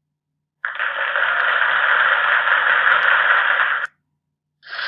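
A loud, steady burst of static-like hiss that starts suddenly, runs about three seconds and cuts off abruptly. A second, shorter burst begins near the end.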